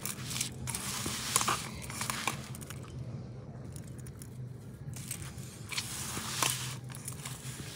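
Hands rubbing and mixing grated coconut, crumbled khoya and sugar in a steel bowl: a dry, crackly rustling with small clicks, easing off for a couple of seconds midway.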